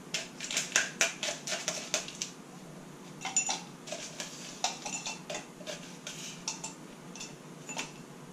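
Crushed ice being scooped with a long bar spoon in a stainless steel shaker tin and spooned into a glass: quick metallic clinks and scrapes, packed closely for the first two seconds, then scattered clinks after a short pause.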